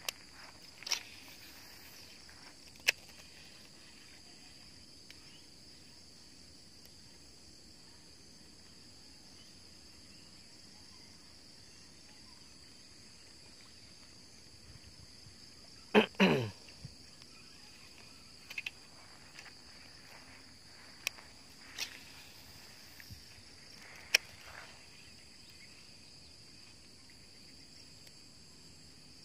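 Steady high-pitched drone of insects in waterside grass, with a few sharp clicks scattered through it. About halfway through comes one loud sound that slides steeply down in pitch over about a second.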